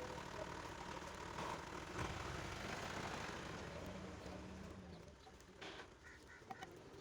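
A dove cooing over faint, steady outdoor background noise, with a few light clicks.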